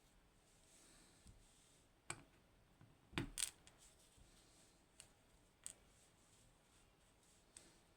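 A few sharp, small metal clicks amid near silence, the loudest a double click about three seconds in: the steel pins and springs of a disassembled Agent LS5 pin tumbler lock being handled and set down.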